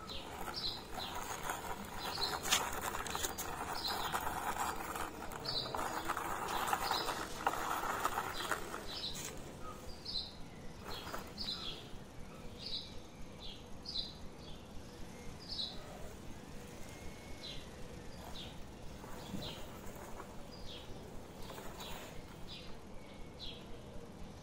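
A small bird chirping over and over, one short high note roughly every second. During the first eight seconds or so a rustling, scraping noise sits under it.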